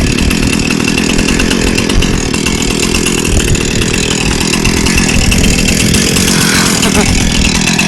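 Chainsaw running loud and steady at high speed.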